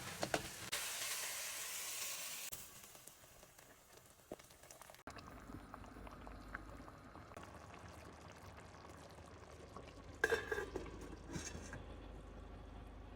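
Food sizzling as it fries in a pan, loudest in the first couple of seconds and then fading to a quieter hiss. A few sharp knocks, like a utensil against the pan, come near the end.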